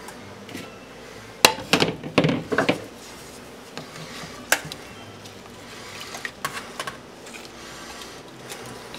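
Metal cookware clanking as a mesh strainer sits on a pot: a cluster of sharp clanks in the first few seconds and one more near the middle, then lighter taps and scraping as a wooden spatula presses lemongrass and vegetables against the strainer mesh.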